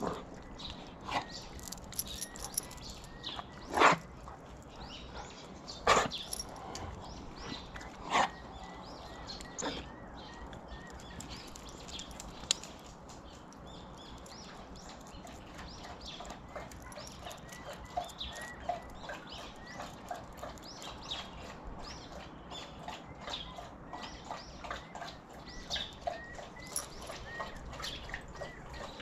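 A dog barking three times, about two seconds apart, with faint high chirps in the later part.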